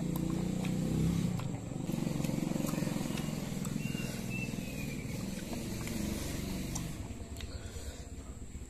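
A motor vehicle's engine running as a steady low rumble that fades away about seven seconds in.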